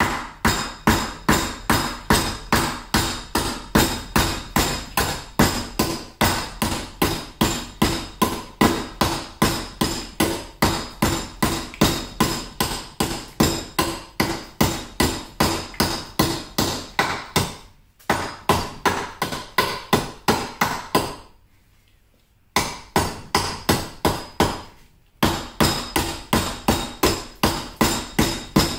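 Cryo-treated AEB-L steel knife chopping hard and fast into a thick board of pressure-treated lumber, about two to three sharp chops a second, in a destructive edge-retention test. There are a couple of short breaks about two-thirds of the way through.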